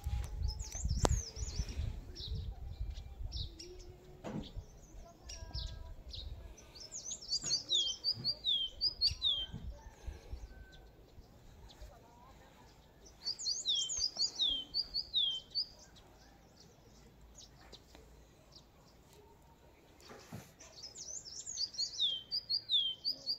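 A songbird singing in four bouts of quick, high, falling chirps a few seconds apart. A low rumble sits under the first five or six seconds.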